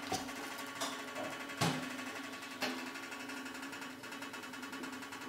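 A few light metal knocks and clatters as the cake tin is handled inside the stainless steamer pot, over a steady low hum.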